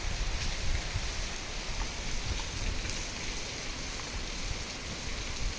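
Steady rain falling, with rainwater running in a stream along the street.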